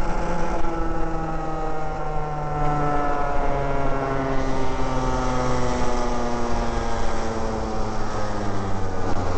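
Parilla two-stroke kart engine running at low revs, its pitch sinking gradually as the revs fall.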